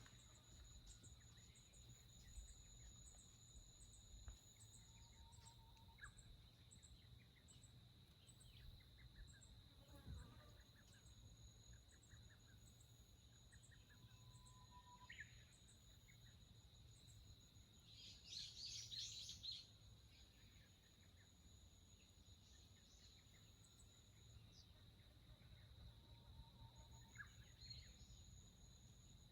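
Faint forest ambience: a steady high-pitched insect trill with scattered short bird calls, and a louder burst of bird chatter about eighteen seconds in.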